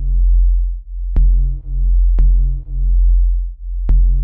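Electronic music with a deep synth bass swelling and fading in notes about a second long, punctuated by sharp percussive hits about a second apart. It is the stereo audio signal that drives the oscilloscope's trace.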